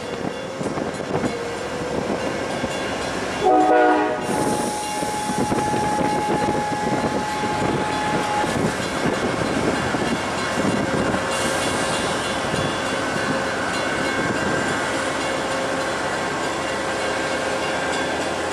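Amtrak Amfleet passenger cars passing at speed, a steady rumble and clatter of wheels on rail. About three and a half seconds in there is a brief loud pitched sound, then a thin steady whine that lasts about four seconds.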